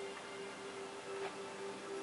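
Faint, steady hum in a quiet room, with no bird call.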